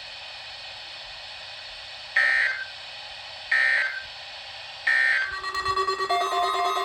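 Over radio hiss, three short, shrill bursts of EAS digital data code sound about a second and a half apart: the end-of-message signal closing a NOAA Weather Radio weekly test. About five seconds in, several steady electronic tones sound together.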